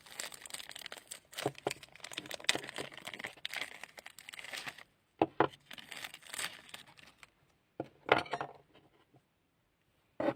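Hands squeezing and stretching slime, making crackling, crinkling pops: a dense run for about five seconds, then shorter bursts with pauses between.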